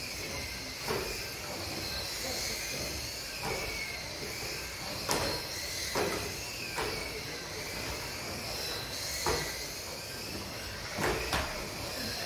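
Several radio-controlled model cars racing on a carpet track: the high whine of their electric motors rises and falls in pitch as they speed up and slow down, with sharp knocks every second or two as cars hit the barriers and each other.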